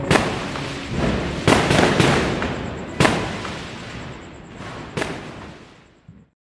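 Fireworks going off: about five sharp bangs a second or so apart, each trailing off in a long echo, the last ones fainter before the sound cuts off.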